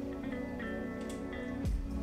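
Background music: held guitar notes, with a drum beat coming in near the end.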